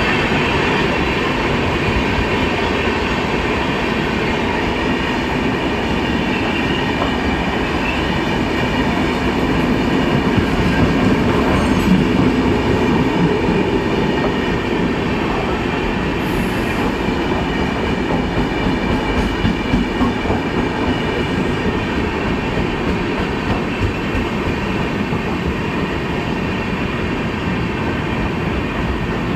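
Indian Railways passenger train, the LTT–Karaikal Express, running on the rails: a steady, continuous rumble of wheels and carriages.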